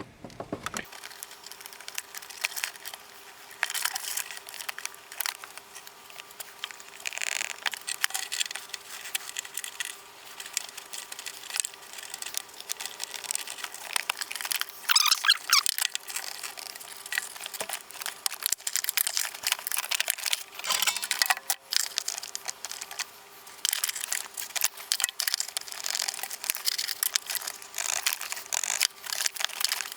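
Razor utility knife cutting through a black plastic panel, a long run of irregular scraping and rasping strokes.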